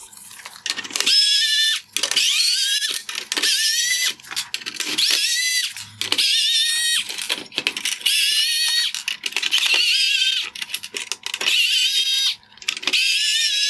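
Cordless electric screwdriver backing out T20 Torx screws in repeated bursts of about a second. Each burst spins up with a rising whine and then holds a steady high whine.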